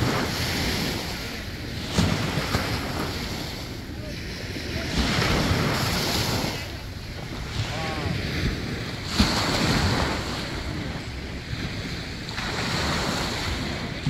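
Small ocean waves breaking and washing up a sandy beach, the hiss of the surf swelling and fading every few seconds. Wind rumbles on the microphone underneath.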